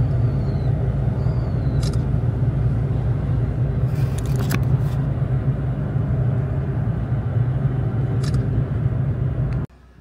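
Road noise inside a moving car: a steady low rumble of engine and tyres, with a few short clicks. It cuts off abruptly near the end.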